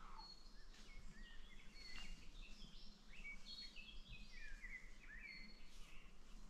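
Baby chicks peeping faintly: many short, high chirps overlapping, some sliding down in pitch, with a few faint ticks among them.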